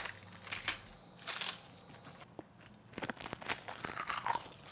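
Plastic packet of roasted seaweed (kim) crinkling and tearing as it is opened and the crisp, brittle sheets are pulled out, in short scattered rustles and crackles.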